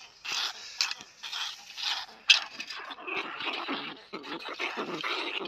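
Irregular scratching and scraping at a rat trap with caught sewer rats in it, with scattered clicks and one sharp click about two seconds in.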